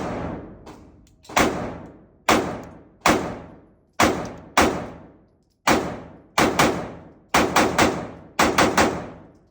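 Glock 45 9mm pistol being fired, about sixteen shots, each trailing off in a long echo. The first shots come singly about a second apart, then quick strings of three and four shots near the end.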